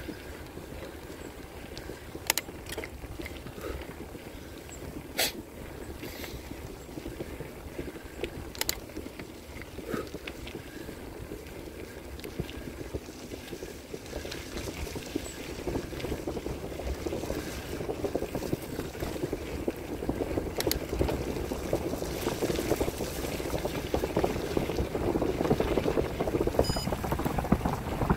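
Bicycle tyres rolling over a dirt and gravel road, with wind noise on the handlebar camera's microphone. The rolling noise grows louder from about halfway on, and there are a few sharp clicks from the bike in the first part.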